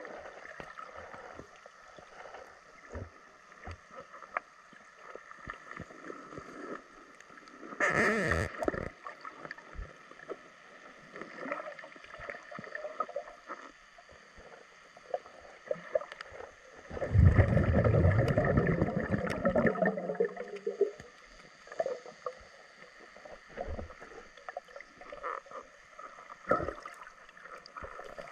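Muffled underwater sound through a camera's waterproof housing: scattered clicks and knocks, a brief rush of noise about eight seconds in, and a longer, louder rush lasting some three seconds from about seventeen seconds in.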